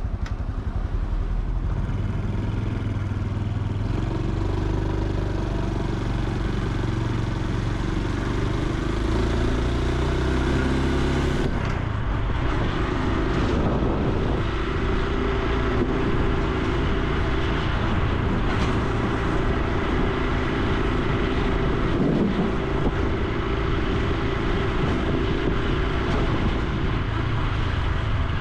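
Honda Super Cub C125's single-cylinder four-stroke engine and exhaust running on the move, its note rising and falling with throttle and gear changes. The note changes markedly about a third of the way through.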